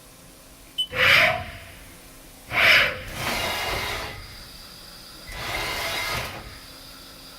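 Haas TL-25 CNC lathe mechanisms working: a click, then a loud hissing burst with a short rising whine, a second loud hissing burst, and two longer stretches of hissing over a faint steady hum.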